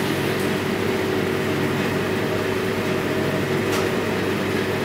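Steady hum of a commercial kitchen's extractor hood fans, an unchanging drone with a few fixed tones in it.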